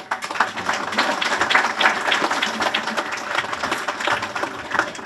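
Audience applauding: many hands clapping in a dense, steady patter that breaks out all at once.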